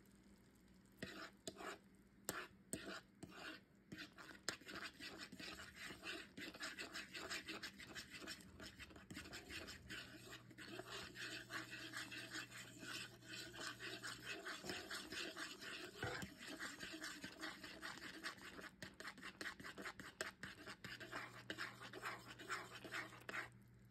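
A utensil stirring thick gravy in a pot, a fast, continuous run of scrapes and clicks against the pot, starting about a second in and stopping just before the end. A steady low hum lies underneath.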